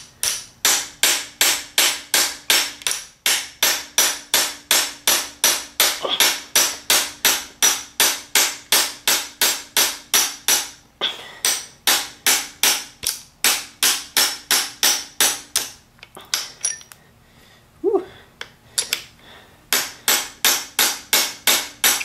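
Hammer blows on a steel pin punch, driving the stubborn shift-linkage spring pin (roll pin) out of a Honda B18C5 transmission linkage. The blows come quick and even, about three a second, each one ringing, with a few short pauses. After about 16 seconds they turn scattered, then settle back into a steady rhythm near the end.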